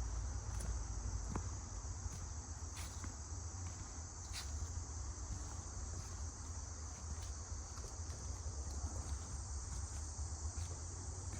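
Steady high-pitched chorus of insects such as crickets, over a low rumble, with a few soft clicks about one, three and four seconds in.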